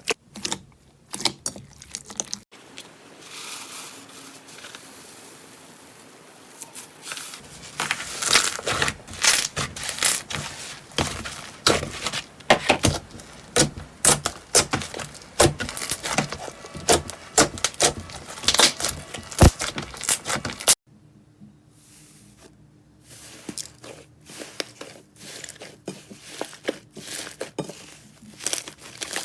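Slime being squeezed, poked and stretched by hand: quick runs of sticky clicks, pops and crackles, spread across several separate clips. The busiest run comes in the middle, with softer, quieter handling at the start and near the end.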